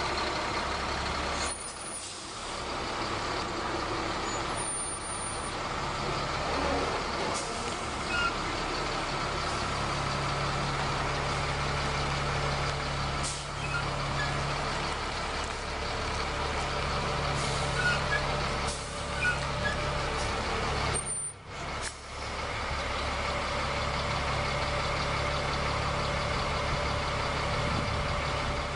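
Freightliner FL80 truck's diesel engine idling steadily.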